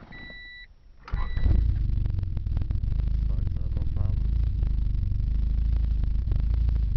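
A short electronic warning beep, then about a second in the starter begins cranking the turbocharged Honda Civic's D16 four-cylinder engine, turning it over steadily without it catching. The owner puts the no-start down to a MAP sensor issue.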